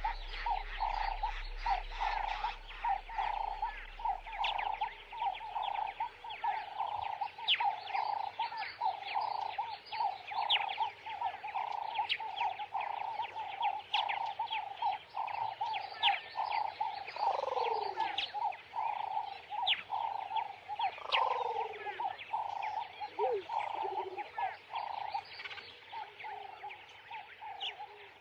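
Added soundtrack of a fast, steady pulsing croak-like sound with scattered high chirps and a few falling sweeps, growing thinner near the end.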